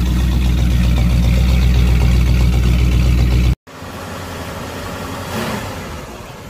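Buick Century's engine idling steadily with a deep, even exhaust note, cut off abruptly about three and a half seconds in. After that there is a quieter, steady low rumble.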